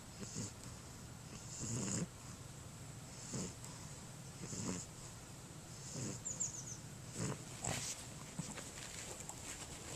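English Bulldog breathing with harsh, snoring-like inspiratory stridor, a rasping breath about every second and a half, the loudest about two seconds in. The noise comes from air forced through its narrow nostrils and short, flattened airway.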